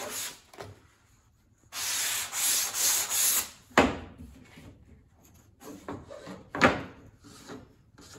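Hand sanding along the edge of a painted wooden baseboard strip with folded sandpaper. There is a short stroke, a pause of about a second, then a run of quick strokes. After that come two sharp wooden knocks, about four and about seven seconds in, as the strips are handled on the workbench, with faint handling between.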